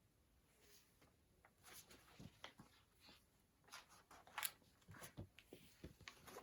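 Near silence with faint, scattered soft clicks and rustles of a picture book being handled.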